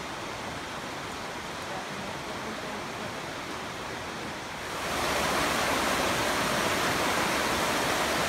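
River rapids rushing over rocks: a steady hiss of running water that gets louder about five seconds in.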